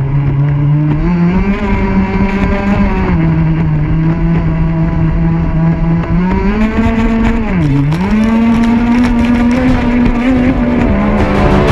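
Pro Boat Rockstar 48-inch RC catamaran's gasoline two-stroke engine running at high revs, heard from on board the boat. Its pitch steps up about a second in, dips sharply near eight seconds and climbs back as the throttle is eased and reopened.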